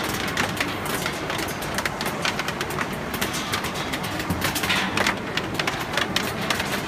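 GroTech LD60 optical colour sorter sorting cashew kernels, its compressed-air ejector nozzles firing a dense, irregular stream of sharp puffs and clicks as they blow off rejected kernels, over the steady hum of the running machine.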